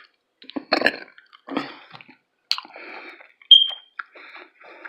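Close-up eating sounds: a person chewing food with wet mouth noises, in several short irregular bursts with a brief high squeak near the end.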